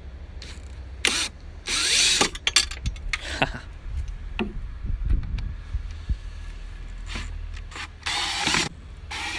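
Bosch cordless power driver spinning bolts out of the coolant expansion tank's mounting, in several short bursts.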